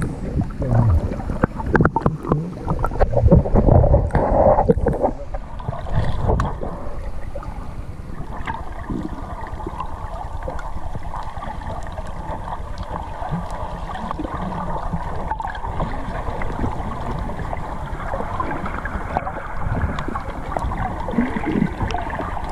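Wind buffeting the microphone over steady rushing water noise. There are loud gusts and knocks for the first five seconds or so, then it settles into an even rush.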